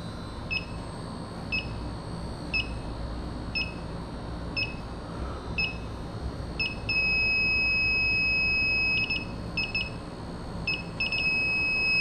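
Electronic refrigerant leak detector on high sensitivity: a high beep about once a second, which turns into a steady tone about seven seconds in, breaks into quick beeps, and goes steady again near the end. The steady beep signals that it has picked up a refrigerant leak.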